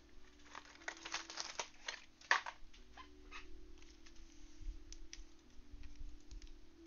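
Plastic-wrapped trading card packs crinkling and clicking as a stack of them is handled and shuffled, with one sharper click about two seconds in; the crackling thins out in the second half.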